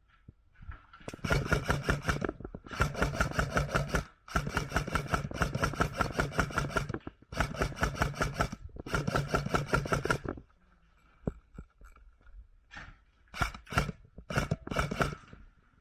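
Airsoft rifle firing long full-auto bursts, each a rapid string of shots over a steady mechanical whine, five bursts in about nine seconds with short pauses between. After a pause, a few shorter bursts follow near the end.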